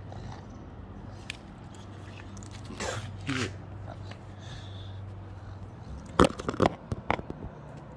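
Phone handling noise: a quick cluster of sharp knocks and rubbing about six seconds in, as the phone is bumped against bare skin, over a low steady hum.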